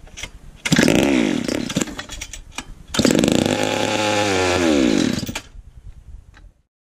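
McCulloch 101 two-stroke kart engine firing up for the first time. It catches about a second in and revs up and falls back, then revs up again for about two seconds before dying out with a few sputters near the end.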